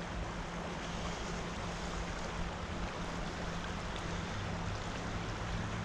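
Steady rush of a flowing creek, with a low, steady hum underneath.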